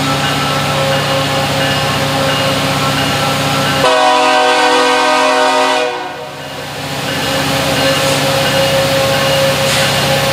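Tacoma Rail diesel locomotives working hard up a steep grade in full throttle (notch 8), a steady engine drone. About four seconds in, a multi-note train horn sounds one blast of about two seconds.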